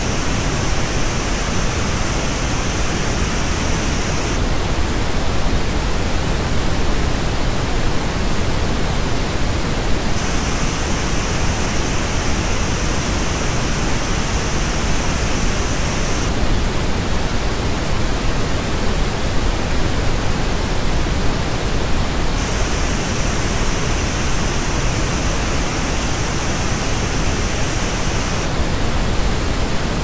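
Steady pink noise that switches about every six seconds between the flat original reference and the same noise as reproduced by JBL Vibe Beam true wireless earbuds. The earbud version has a raised, hissier upper treble with a hollow dip just above it.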